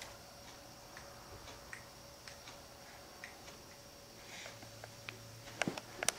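Faint, scattered wet clicks and smacks of a baby chewing on a soft cloth book, with a few sharper clicks near the end, over a faint steady hum.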